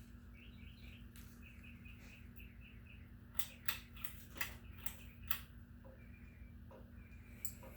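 Hampton Bay Huntington III ceiling fan running with a steady low motor hum. About three seconds in there is a quick series of sharp clicks and ticks. Faint repeated chirps sound in the first seconds.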